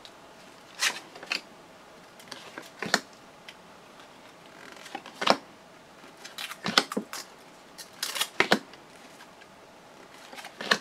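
Trading cards being flipped through in the hands, one card slid from the front to the back of the stack after another: a string of short card-stock clicks and brief scrapes at irregular intervals.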